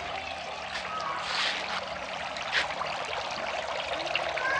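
Water from a small homemade waterfall pouring steadily into a fish pond, with a few brief louder splashes.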